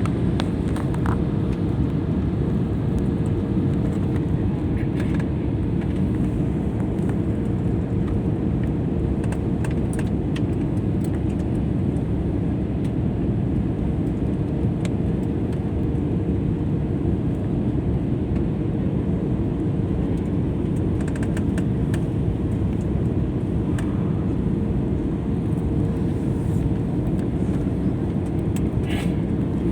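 Airliner cabin noise in flight: a steady, even rumble with a constant hum.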